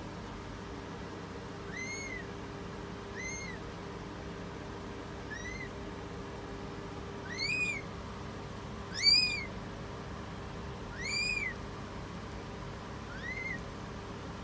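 Newborn British Shorthair kittens mewing: seven short, high, thin cries that rise and fall, about one every two seconds, the loudest about nine seconds in.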